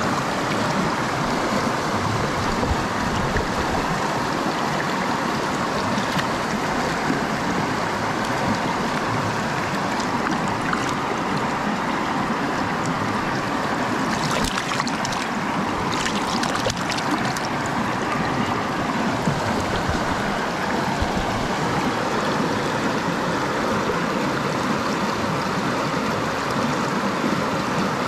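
A rocky mountain stream rushing steadily over stones. About halfway through, a short flurry of splashing as a trout thrashes in a landing net in the shallow water.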